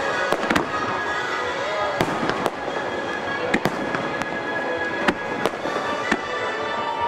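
Fireworks shells bursting in a string of about eight sharp bangs at irregular intervals, over show music of classic Broadway tunes played loud over speakers.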